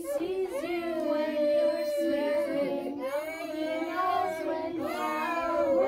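A group of toddlers singing a song together, holding each note for about a second.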